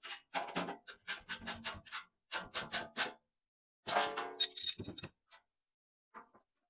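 Background acoustic guitar music in short choppy phrases, which stops about five seconds in and leaves silence.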